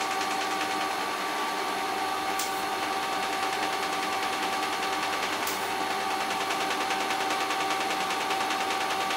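Pulsed DC TIG welding arc from an EWM Tetrix 300 inverter on thin stainless steel at about 55 amps, with no filler rod: a steady, fast-pulsing buzz and hiss over a steady whine.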